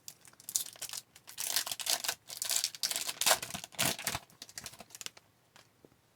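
Foil hockey card pack wrapper crinkling and tearing as it is opened, with cards being handled. The crackle stops about four seconds in, leaving a few faint clicks.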